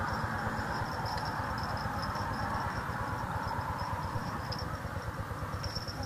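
Steady outdoor background: a low rumble and hiss with a continuous high-pitched insect drone over it.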